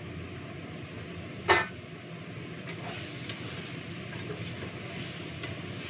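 Metal cookware clanks once, loud and briefly ringing, about a second and a half in, followed by light taps of a spatula against a wok over a steady background noise.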